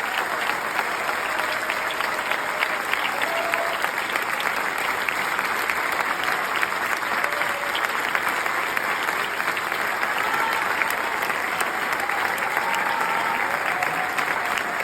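Audience applauding steadily: dense, even clapping with a few voices calling out over it.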